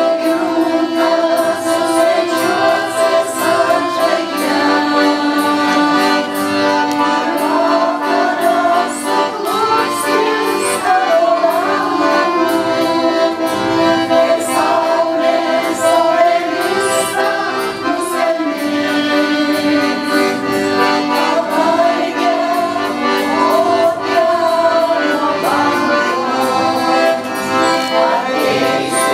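Accordion playing a romance-song tune in sustained chords, with the ensemble's mixed voices singing along and light tambourine jingles keeping the beat.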